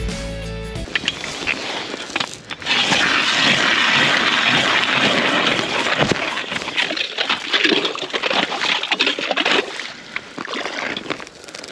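Hand-cranked ice auger drilling into lake ice: its blades cutting steadily, loudest from a couple of seconds in and easing off near the end.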